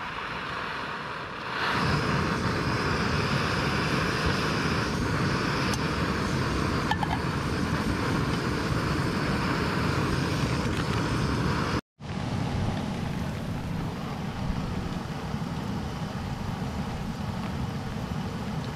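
Steady rush of rain outdoors, with a low rumble on the microphone, growing louder about a second and a half in and cutting out for an instant about twelve seconds in.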